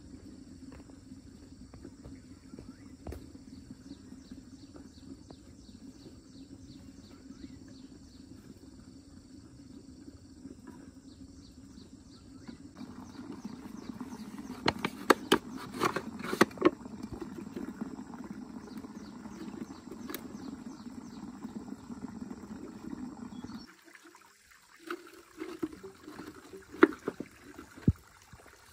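Water running and trickling steadily at a small muddy spring. Around the middle come several sharp knocks and scrapes of a machete blade digging into mud and stones beside a plastic pipe. Near the end the running water stops suddenly, and a few sharp plastic clicks and taps follow as a plastic bottle is handled and fitted onto the pipe.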